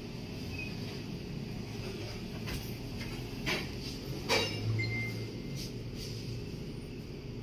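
A few sharp metal clinks and knocks from a stainless steel window grill being shifted and set into place, the two loudest about three and a half and four seconds in. A steady low hum runs underneath.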